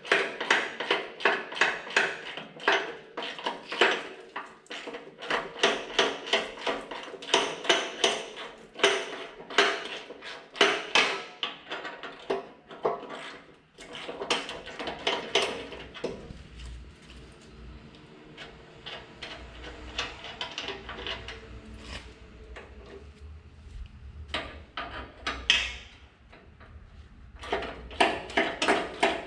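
Hand ratchet wrench clicking in rapid strokes with metal clinks, as mount bolts are worked loose. About halfway through the clicking stops and a quieter stretch with a low rumble follows, then the clicking returns near the end.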